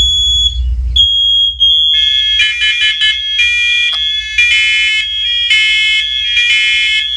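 Several interconnected hardwired smoke alarms going off together, set off by a test of a carbon monoxide-only unit: one high-pitched alarm beeps first, then from about two seconds in more alarms join at different pitches, their beeps overlapping out of step.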